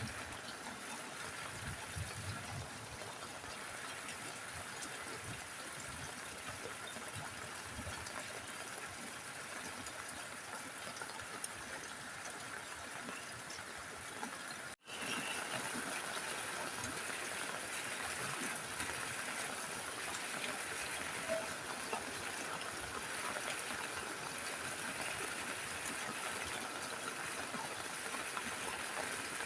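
Steady rain falling on a roof, an even hiss of water. About halfway through it drops out for an instant and comes back slightly louder.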